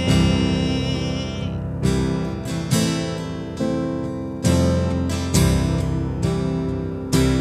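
Acoustic guitar strumming chords, with a new strum roughly every second, over sustained digital piano chords: an instrumental passage between sung lines of a worship song. A held high note dies away about a second and a half in.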